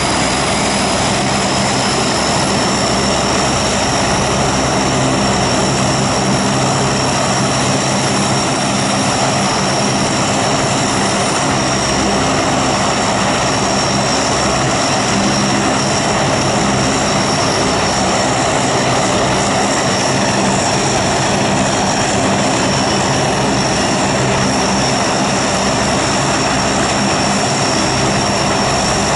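The four turboprop engines of a Lockheed Hercules running together on the ground, propellers turning, giving a steady loud drone. A high turbine whine over it climbs a little in the first few seconds, then holds steady.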